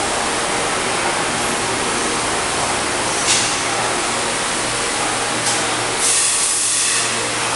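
Mega TR-30NC thread rolling machine running with a steady mechanical noise and a low hum. Two short sharp sounds come about three and five and a half seconds in, then a hiss lasting about a second near the end.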